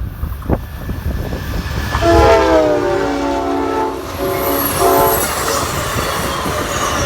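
Amtrak P42DC locomotive's five-chime Nathan K5LA horn sounding a long blast of about two seconds, starting about two seconds in, then a short blast about a second later. The train's low rumble runs under it.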